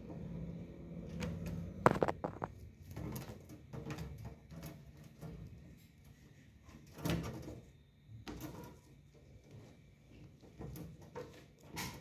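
A pet parrot climbing on a wire-mesh cage: irregular clicks, knocks and rattles of its claws and beak on the wire, with the loudest knock about two seconds in and another about seven seconds in.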